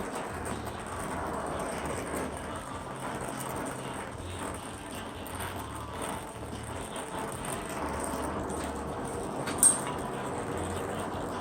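Brazing torch flame burning steadily on copper during silver soldering, with one sharp click near the end.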